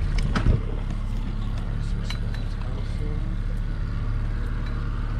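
Boat's outboard motor running steadily at trolling speed, with a couple of knocks about half a second in.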